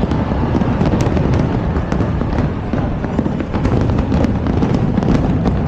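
Loud aerial fireworks display: a continuous low rumble of shell bursts with many sharp cracks and crackles over it.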